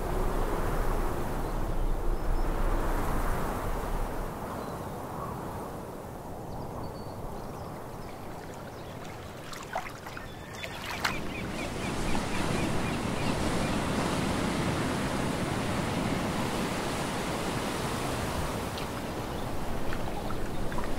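Sea surf: a steady rush of waves, quieter for a while, then fuller and louder from about halfway through, with a few sharp clicks just before.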